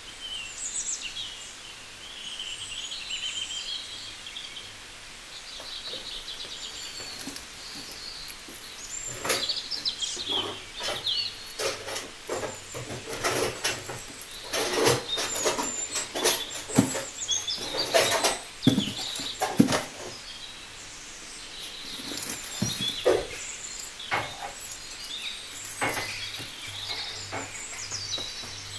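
Small birds chirping over and over in the background. Through the middle come frequent crinkles and knocks from onions and garlic being handled in a foil-lined plastic basket, the loudest sounds.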